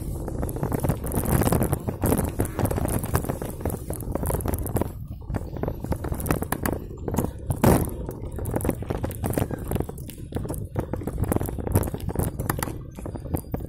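Bicycle ridden over a bumpy dirt trail: wind rumbles on the handlebar-mounted microphone, with irregular knocks and rattles from the bike jolting over the ground.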